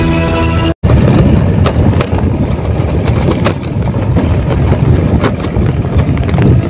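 A theme-music jingle cuts off suddenly within the first second. After a brief gap comes a loud, rough low rumble with scattered clicks: a vehicle travelling along a rough dirt track, with wind buffeting the microphone.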